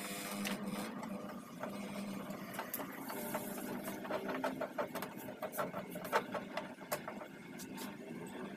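Irregular metallic clicks and clatter of hand tools and parts as a car power window regulator and its motor are taken apart, over a steady low hum that fades out a couple of seconds in.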